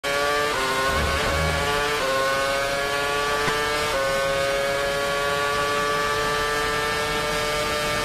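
Renault RS27 2.4-litre V8 of a 2013 Red Bull F1 car at full throttle, heard onboard. Three quick upshifts come about half a second, two and four seconds in, each dropping the pitch, followed by a long climbing pull in top gear.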